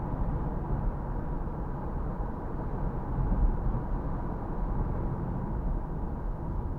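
Strong wind after a typhoon rumbling and buffeting against the microphone in uneven gusts.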